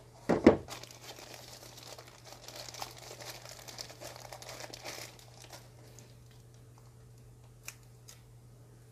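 Soft white packaging wrap rustling and crinkling as it is pulled off a small security camera by hand, after a loud thump about half a second in. The rustling dies away about five and a half seconds in, and a couple of faint clicks follow near the end.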